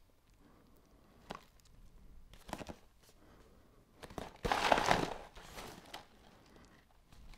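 Cereal packaging being handled: a few light clicks, then a crinkling, tearing rustle about four and a half seconds in that dies away within a second or so.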